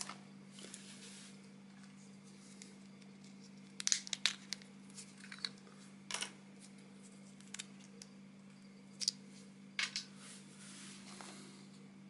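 Plastic sheeting and a small zip-lock bag crinkling, with scattered sharp clicks, as a small plastic USB OTG card reader is handled and set down. The loudest cluster comes about 4 seconds in. A steady low hum runs underneath.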